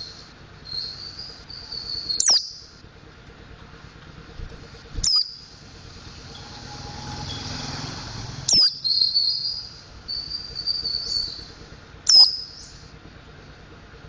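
Mountain white-eye (pleci montanus) singing: a soft, high twittering run, broken four times by a sharp, loud note that sweeps downward. It is practising the song styles that bird-keepers call ngriwik and ngeplong.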